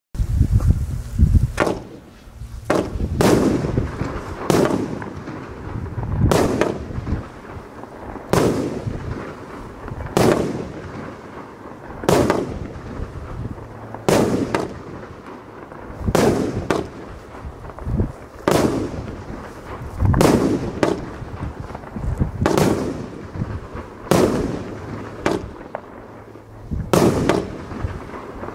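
Imperial Lotus IL51 PRO Brocade Crown, a 19-shot 30 mm firework cake, firing one shot roughly every two seconds. Each shot ends in a loud bang as the brocade crown bursts.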